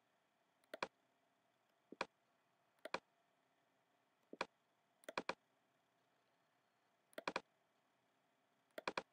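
Computer mouse clicks, most as a quick press-and-release pair. About seven come at irregular intervals, with near silence between.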